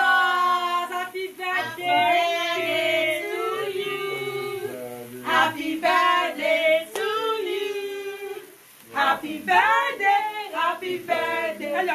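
A woman singing with long held notes, other voices singing along, with a short break about three-quarters of the way through.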